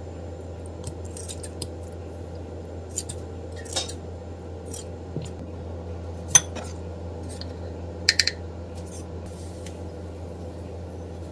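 Scattered clinks and taps of a wooden spoon against a small glass bowl while a seasoning sauce is measured and stirred, the sharpest a few seconds in and a quick pair about two-thirds of the way through. A steady low hum lies underneath.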